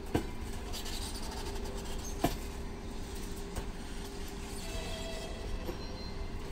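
Passenger coaches of a train rolling slowly into a station, a steady low rumble with two sharp knocks from wheels or couplers about two seconds apart. Near the end comes a faint high-pitched squeal as the brakes slow the train.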